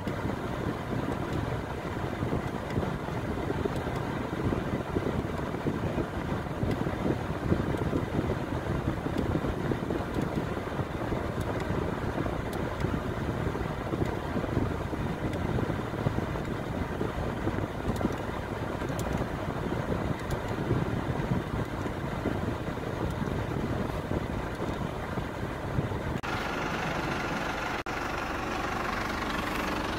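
Hyundai Tucson idling with the air conditioning running, a steady low noise heard from inside the cabin. About 26 seconds in it turns to the engine idling heard from outside the car, brighter and clearer.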